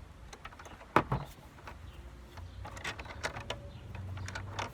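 Hand unscrewing of an air hockey table's blower fan: a sharp knock about a second in, then scattered light clicks and rattles of the screwdriver and metal parts. A low steady hum comes in about halfway.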